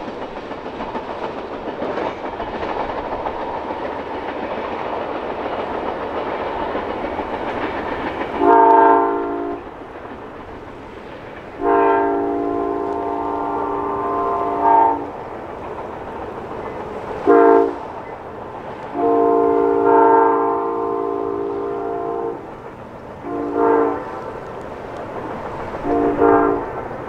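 Amtrak California Zephyr's double-deck passenger cars rumbling and clacking over the rails as the train moves away. About eight seconds in, the distant locomotive's multi-note chime horn sounds long, long, short, long, the standard grade-crossing signal, then gives two shorter blasts near the end.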